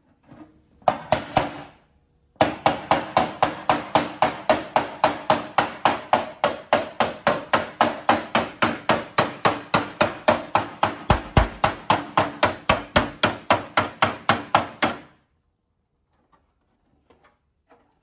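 Small hammer beating on the inside wall of a custom-made motorcycle tank shell, to dent it out for battery clearance. There are a couple of blows about a second in, then a steady run of about four blows a second for some twelve seconds, which stops near the end.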